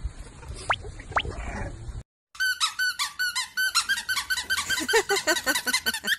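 Two short, quickly rising squeaks, then after a brief break about two seconds in, a fast, dense run of high-pitched squeaks, several a second.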